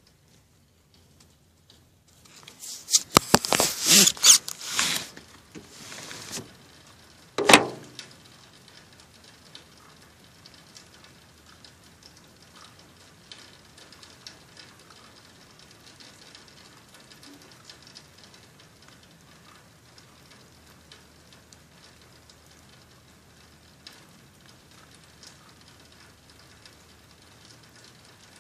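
Scraping and rustling right against a phone's microphone for a few seconds, then one sharp click, then a faint steady patter of rain.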